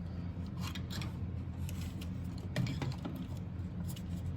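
Faint clicks and light taps of computer case parts being handled and fitted into place, with a small cluster of clicks about two and a half seconds in, over a steady low hum.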